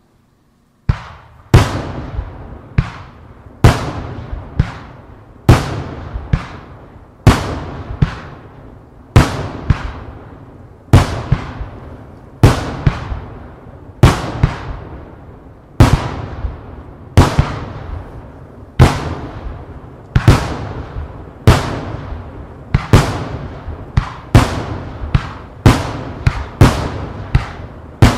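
Aerial firework shells bursting one after another, each a sharp bang followed by a fading crackle and echo. The bangs start about a second in, come roughly once a second, and quicken to about two a second near the end.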